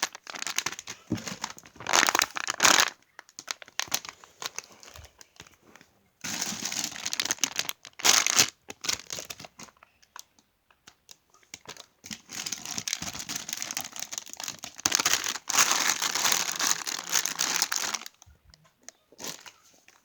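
Plastic crinkling and rustling in irregular spells as squishy toys are handled, with quieter pauses between.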